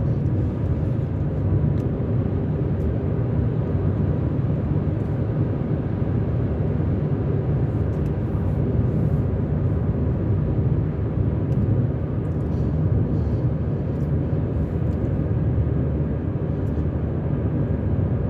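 Steady low rumble of a car driving along a freeway, tyre and engine noise, with a few faint ticks.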